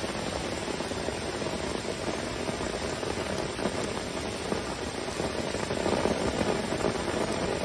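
Steady rain falling, an even hiss of drops that holds at the same level throughout.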